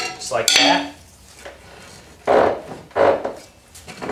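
Two short metallic clunks, about two and three seconds in, as the rusty rear trailing arm of a 2002 Mitsubishi Lancer is worked loose from the car.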